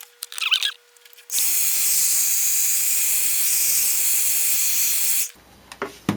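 Handheld hot-air dryer blowing steadily for about four seconds to speed the drying of wet watercolour paint, switched on a little over a second in and cut off abruptly near the end, after a few faint handling sounds.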